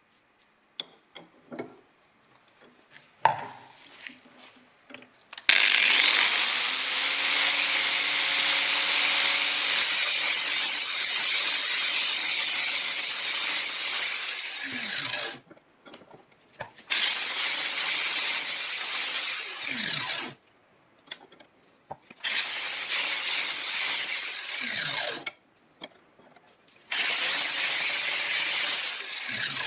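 A power tool abrading, run in four bursts: the first about ten seconds long, the others about three seconds each. The motor's hum falls away at the end of each burst as it is switched off and winds down. A few light knocks come before the first burst.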